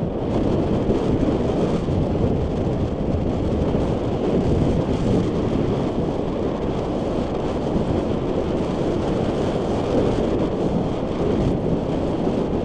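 Mountain bike descending a rough dirt trail at speed: a steady rumble of wind on the microphone mixed with the tyres and bike rattling over the ground.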